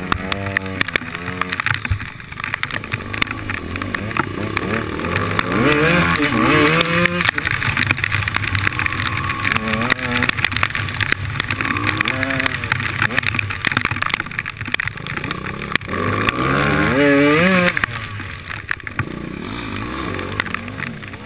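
Enduro dirt bike engine under way on a trail, heard from on the bike, its revs rising and falling repeatedly with several sharp climbs as the throttle is opened through the gears.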